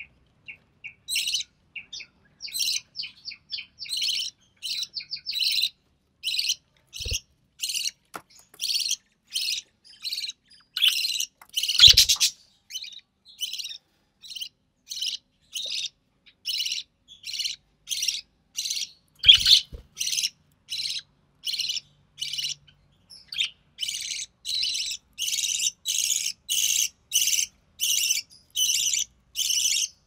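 Budgerigar chick chirping over and over, short high calls that settle into a steady, insistent rhythm of about two a second, typical of a chick begging to be fed. Three brief low knocks come in among the calls.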